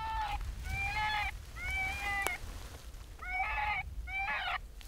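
Electronic predator call playing an animal distress sound on a loop: five short, high whining cries, about one a second, with a short gap in the middle.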